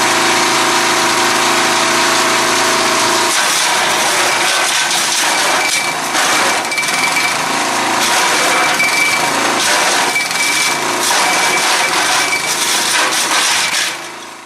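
7 HP gasoline engine of a small wood chipper shredder running steadily, then from about three seconds in, branches being fed and chipped, with irregular cracking and knocking as the wood breaks up against the blades. The sound cuts off suddenly at the end.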